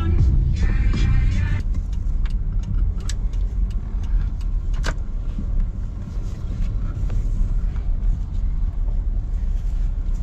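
Steady low rumble of a car's engine and tyres heard from inside the cabin while driving, with a few scattered sharp clicks. Background music fades out within the first two seconds.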